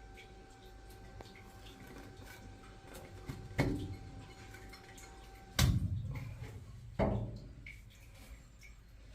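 Three sharp knocks, the second and third the loudest, each followed by a short low rumble, over a low steady hum. A faint steady whine stops at the second knock.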